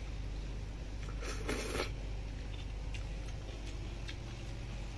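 Cutlery against a plate: a few faint light clicks of a fork and spoon, with one brief rustling scrape about a second and a half in, over a steady low room hum.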